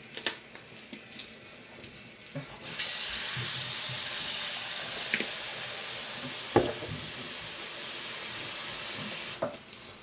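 Kitchen tap turned on a couple of seconds in, water running steadily for about seven seconds, then shut off. A few light knocks come before it, and one sharp knock partway through.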